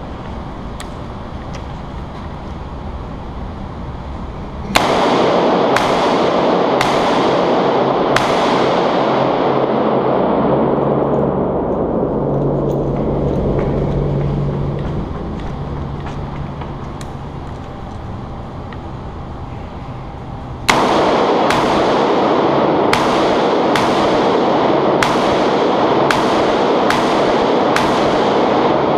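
Bushmaster AR-15 carbine firing in an indoor range lane: four shots about a second apart some five seconds in, then a quicker string of about ten shots, roughly two-thirds of a second apart, from about two-thirds of the way through. Each shot leaves a long echo off the concrete walls.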